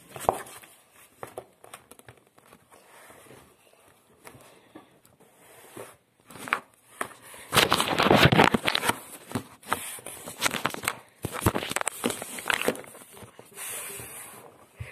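Paper sheets being handled close to the microphone: rustling and crinkling with scattered clicks and knocks. It is quiet at first, then louder rustling comes in two stretches from about halfway through.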